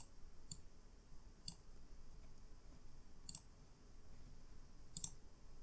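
Faint computer mouse clicks, about five spread irregularly over a few seconds, against quiet room tone.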